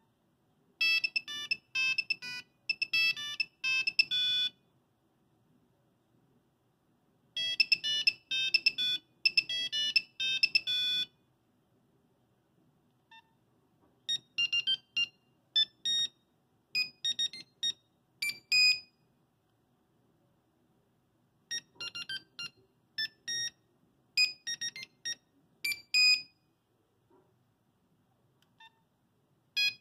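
Nokia 5110 monophonic ringtones beeping out short tunes. A quick, busy melody plays twice with a pause of about three seconds between, then a sparser, slower melody also plays twice.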